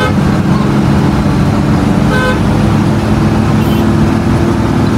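Intercity bus engine running steadily under way, heard from inside the driver's cab. A short horn toot sounds about two seconds in.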